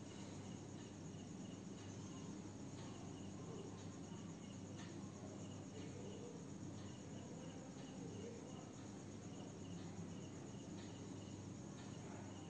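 Faint cricket chirping, short chirps repeating in loose groups, over a low steady hum.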